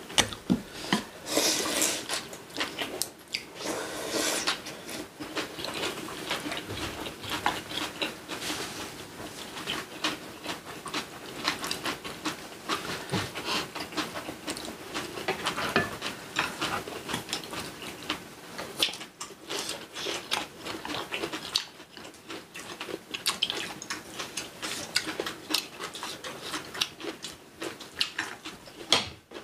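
Eating sounds at a table: cutlery clicking and scraping against dishes and bowls in short, irregular clicks.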